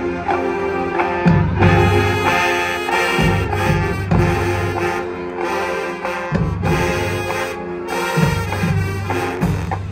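High school marching band playing, brass-led: full held chords that shift every second or so, over heavy low drum hits.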